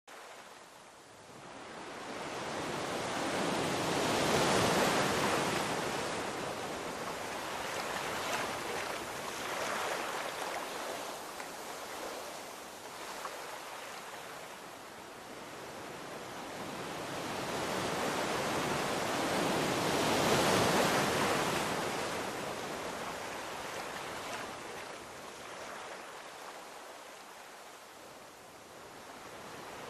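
Ocean surf washing onto a beach: a steady rushing wash that swells and ebbs slowly, loudest about a sixth of the way in and again about two-thirds through.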